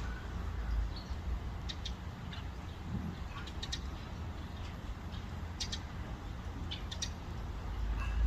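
Birds: brief high chirps or ticks, mostly in pairs, every second or two, over a steady low rumble.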